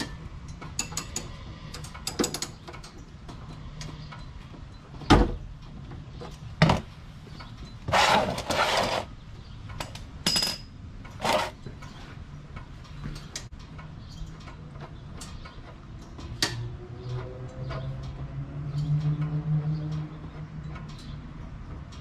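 Ratchet and socket clicking and clanking as the oil drain plug of the Porsche 911SC engine is loosened by hand, with scattered metal clinks and a few louder knocks and short rattles. A low drone that wavers in pitch comes in near the end.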